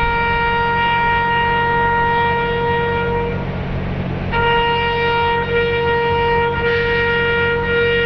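Brass instrument sounding a slow ceremonial call in long held notes: one long note, a break of about a second, then the same note held again. A steady low hum runs underneath.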